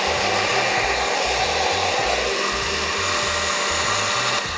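Countertop blender running, puréeing a cooked tomatillo salsa with water: a steady motor whir that stops near the end.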